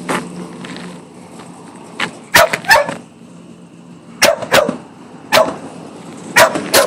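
A dog barking close by, about seven loud barks that come mostly in quick pairs, starting a couple of seconds in. Under the start, the truck's engine idles and fades away within the first second.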